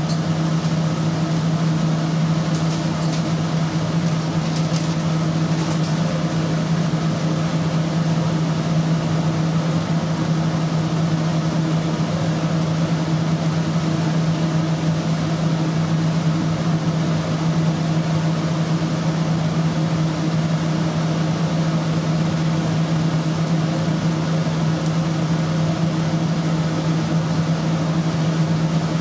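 Steady low drone of kitchen machinery, with a strong hum and a fainter hum an octave above it over an even rushing noise.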